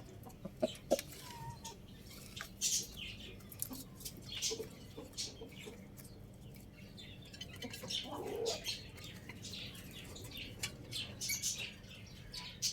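Many small birds chirping in short, high, scattered calls, with a few sharp clicks near the start and one brief lower call about eight seconds in.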